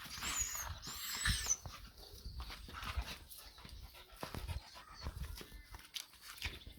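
A puppy whimpering and squealing in high thin cries during the first second or so, amid scuffling and soft knocks of rough play.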